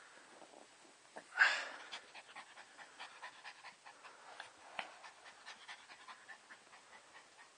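Yorkipoo panting in quick, rhythmic breaths, several a second, after hard play: the dog is worn out. One louder huff of breath comes about a second and a half in.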